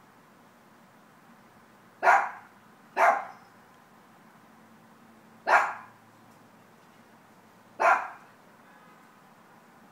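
A dog barking: four short single barks, two close together about two seconds in, then one in the middle and one near the end.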